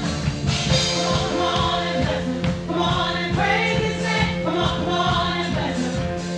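Worship music: a band playing with several voices singing together over a steady beat, with sustained low notes underneath.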